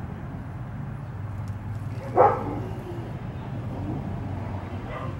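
A dog barks once loudly about two seconds in and once more faintly near the end, over a steady low hum.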